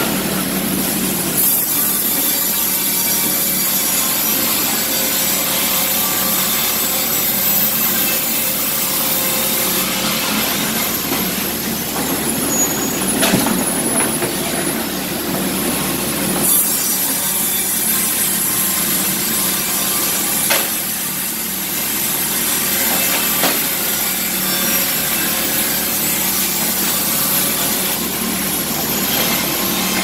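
Industrial horizontal band sawmill running and cutting a log: a loud, steady sawing noise of the blade in the wood, with a few sharp knocks in between.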